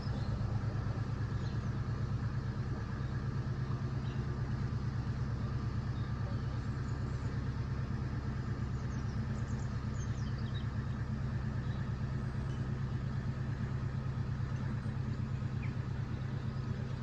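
Narrowboat engine idling with a steady, fast, even chug.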